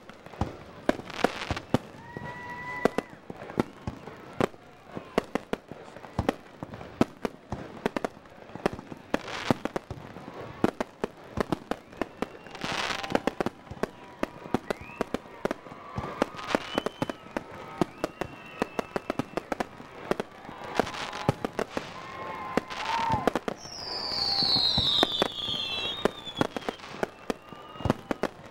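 Aerial fireworks display: shells bursting with a dense run of sharp bangs and crackles, several heavier booms among them, and a high whistle falling in pitch near the end.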